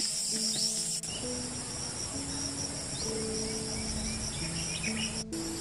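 Steady high-pitched chorus of insects, with soft background music underneath playing slow held notes.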